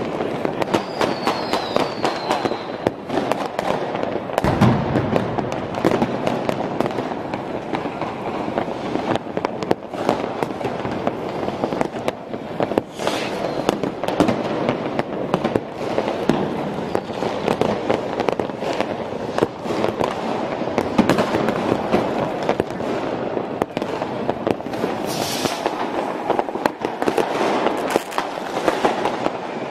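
Dense, unbroken barrage of New Year's fireworks and firecrackers, many sharp bangs and crackles overlapping. A whistling firework sounds briefly about a second in, and a deep boom stands out at about four and a half seconds.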